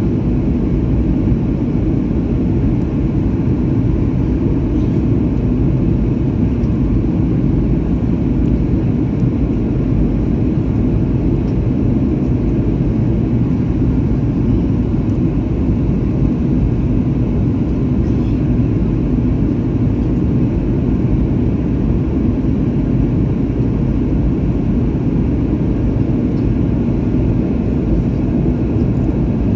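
Steady cabin noise inside an airliner descending on approach: engine and airflow noise, deep and unchanging.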